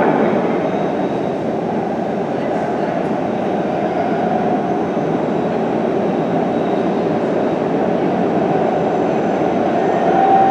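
MBTA Orange Line subway train approaching through the tunnel: a steady rumble of wheels on rail, with a brief thin squeal near the end as the train nears the platform.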